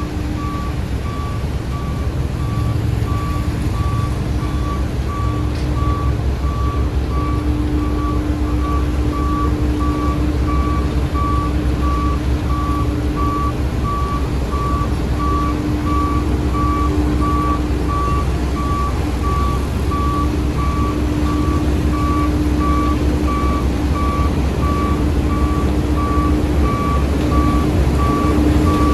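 Heavy construction machine's reversing alarm beeping steadily at about two beeps a second over a diesel engine running.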